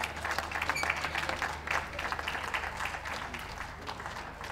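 Audience applauding, many hands clapping in a dense patter that thins out toward the end.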